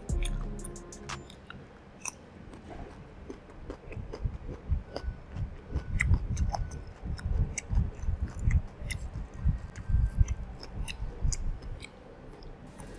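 Close-miked biting and chewing of crunchy food (flour-coated fried pork and raw vegetables), with irregular crisp crackles over low chewing thuds.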